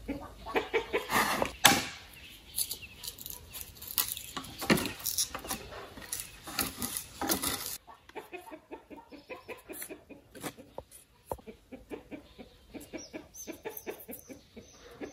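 Short, sharp cuts and taps of a large knife blade shaving a small piece of bamboo, with chickens clucking.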